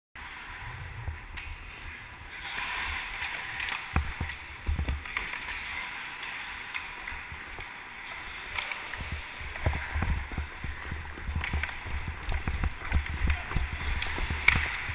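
Hockey skates scraping and carving on rink ice with the rumble of strides, and scattered sharp clacks of sticks and puck, growing busier in the second half.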